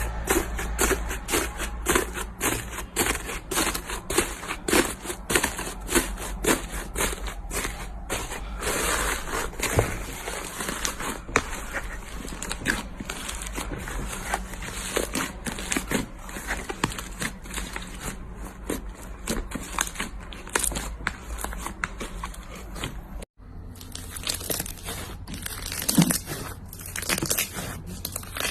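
Slime being squeezed and worked by hand, giving a dense run of small crackling pops and clicks. The sound cuts off for an instant about 23 seconds in and then carries on more sparsely.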